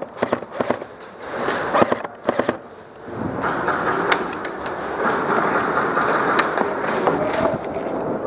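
Airsoft gunfire: a run of sharp, irregularly spaced pops and cracks in the first couple of seconds, then a steady rush of background noise with a few scattered pops.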